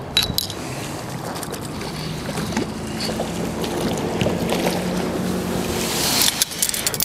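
Boat motor running, a steady drone that grows slowly louder, with wind on the microphone and a few short knocks of gear in the boat near the end.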